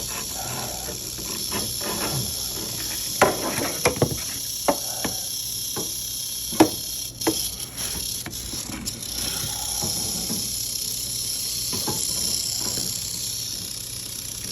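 Canebrake rattlesnake rattling with a steady high buzz, the defensive warning of a disturbed snake. Several sharp knocks come in a cluster between about three and seven seconds in.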